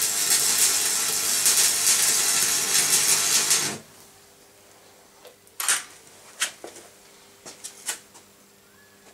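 Electric arc welding on a steel bar: the steady, loud crackle and hiss of the arc, which cuts off suddenly after nearly four seconds. Then a few short, sharp crackles at a lower level.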